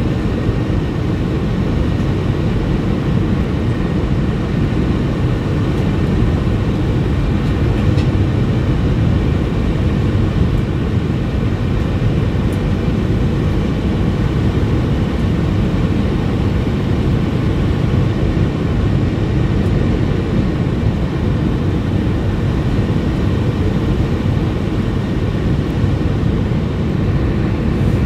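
Steady cabin noise inside an Airbus A320-232 in flight: an even low rumble of airflow and its IAE V2500 engines, heard from a forward window seat.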